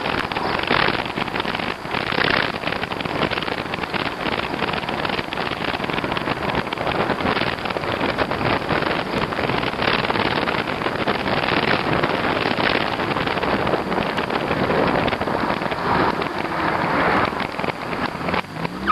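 Wind rushing over the microphone of a camera riding on a moving e-bike: a steady, loud noisy rush that flutters and gusts.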